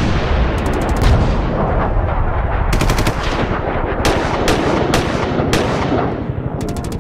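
Loud, rapid, continuous rattle like machine-gun fire, easing slightly near the end.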